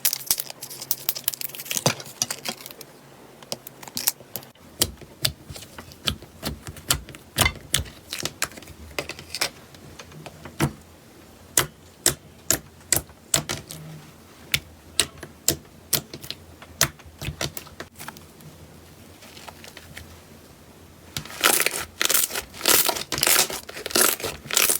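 Slime being pressed and worked by hand, giving scattered sharp crackles and pops at an uneven pace that turn into a dense, louder run of crackling near the end.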